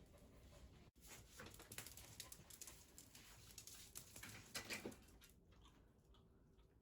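Faint, irregular clicks and scuffs for about four seconds, fading away near the end.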